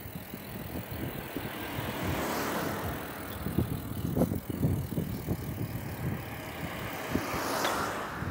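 Bicycle rattling and knocking over uneven asphalt as it is ridden, with wind noise. An oncoming car passes about two seconds in, a rising and falling rush of tyre and engine noise. A second rush of noise comes near the end.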